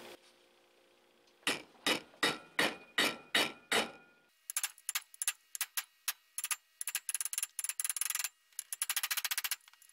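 Metal hammer tapping the outer race of a ball bearing to seat it in the pump housing. About eight heavy, ringing knocks come roughly three a second, followed by many lighter, quicker taps and a fast flurry of taps near the end.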